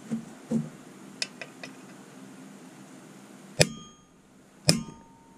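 Two sharp hammer blows on a steel punch, about a second apart, each with a short metallic ring, after a few light clicks. The punch is driving out the governor stud of a Predator 212 engine block to knock out the whole governor assembly for a governor delete.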